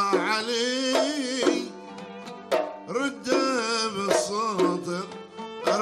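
Omani traditional music: small double-headed hand drums (mirwas) beat sharp, spaced strokes under a sliding, wavering melody line.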